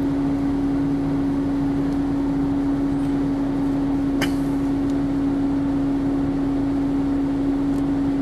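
Car idling while stopped at a red traffic light, heard from inside the cabin: a steady, unchanging hum over low road noise, with one faint click about four seconds in.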